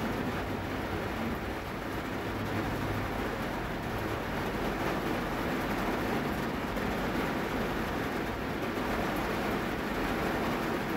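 Heavy rain heard from inside a car: a steady, even rush of noise with a low rumble beneath it.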